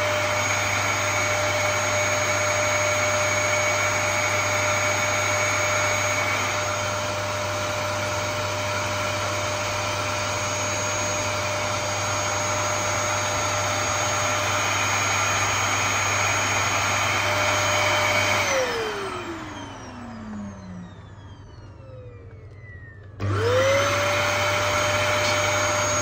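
Dyson canister vacuum cleaner running steadily. About 18 seconds in it is switched off and its motor winds down with falling pitch. About five seconds later it is switched back on and spins quickly up to speed.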